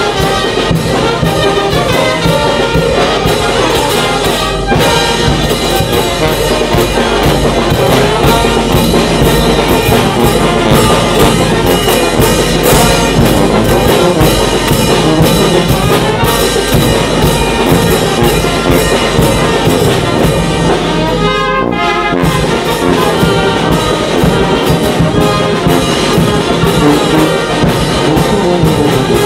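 Mexican wind band (banda filarmónica) playing: brass, saxophones and clarinets together, with crash cymbals and percussion keeping a steady beat.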